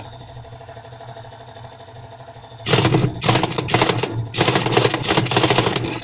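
Impact wrench hammering on the rusted drum hub nut of a Samsung top-load washing machine, breaking it loose. It starts about two and a half seconds in and runs in three bursts with short pauses, the last one the longest.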